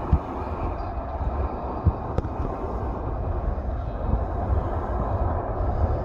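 Engines of a Ryanair Boeing 737 airliner giving a steady, deep rumble as it arrives, with a few brief low thumps.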